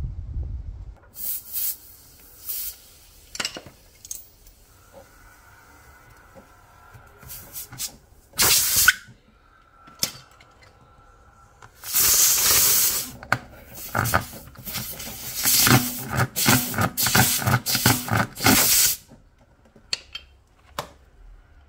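Steel rasp tool worked in and out of a puncture hole in a car tire's tread, scraping against the rubber to clean and enlarge the hole before plugging. A few separate scrapes come first, then from about halfway a quick run of strokes for about seven seconds.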